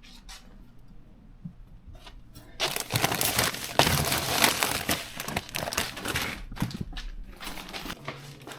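A bag being handled and crinkling, a dense crackle that starts about two and a half seconds in, then eases off near the end.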